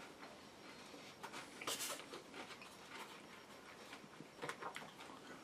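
Quiet tabletop handling sounds: scattered light clicks and taps, with a short hiss about two seconds in.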